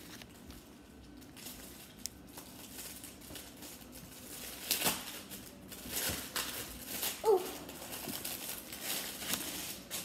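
Packaging wrapper being handled and torn open, rustling and crinkling in short irregular crackles that bunch up around the middle.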